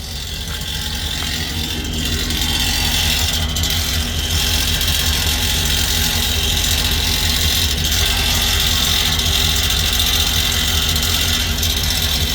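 Vehicle engine running steadily, getting louder over the first two seconds, with a strong high hissing noise over it.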